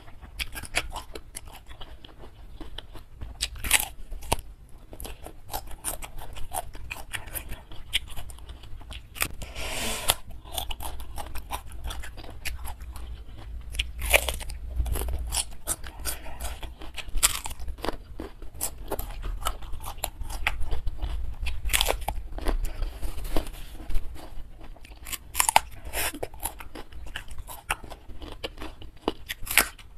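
Raw bitter melon (pare) being bitten and chewed close to the microphone: crisp crunches at irregular intervals, with a longer hiss about ten seconds in.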